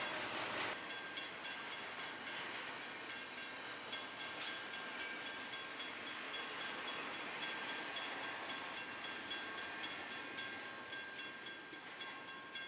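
Intermodal freight train rolling past a road grade crossing, with the crossing bell ringing steadily at about two to three strokes a second. The train noise fades near the end as the last cars clear, while the bell keeps ringing.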